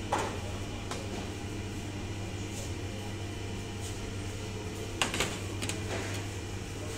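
Steady low machine hum, like a fan or cooling unit running, with a few short sharp clicks of a steel knife against a stainless steel worktable: one at the start and two close together about five seconds in.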